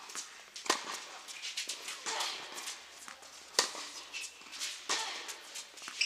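Tennis balls struck by rackets in a doubles rally: a string of sharp pops at uneven intervals, the loudest about three and a half seconds in and another a little over a second later.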